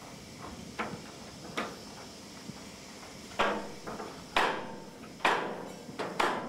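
Open-end wrench clinking on a steel nut and bolted steel plate as the bolt is tightened: sharp metallic clinks about once a second, louder from the middle on.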